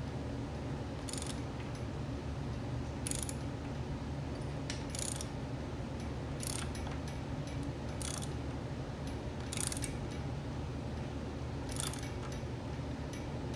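Ratchet wrench hand-turning a Toyota 2JZ's crankshaft, with a short burst of ratchet clicks on each return swing of the handle, one every one and a half to two seconds, over a steady low hum. The engine is being turned with the cams timed at top dead centre to check for valve-to-piston contact.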